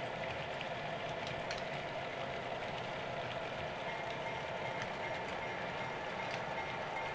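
Model train freight cars rolling steadily along the layout's track: an even running rumble with a steady hum and a few faint light clicks.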